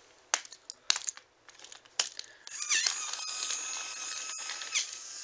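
A few sharp clicks, then from about two and a half seconds in a battery-powered TrackMaster Duncan toy engine's small electric motor and gears whirring with a steady high whine, running at a good speed.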